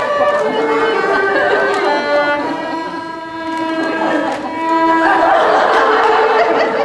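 Small Chinese folk band playing a melody, led by dizi bamboo flute with erhu fiddle, in long held notes stepping from pitch to pitch. Voices join in over the music about five seconds in.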